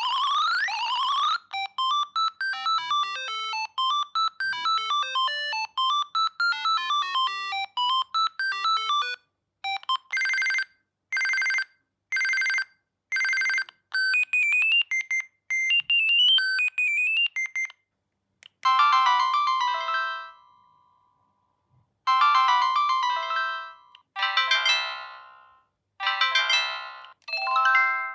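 Siemens C65 mobile phone stock ringtones playing one after another: a fast electronic polyphonic melody, then four long rings about a second apart, a short high jingle, and finally a run of chime-like notes that fade away after each strike.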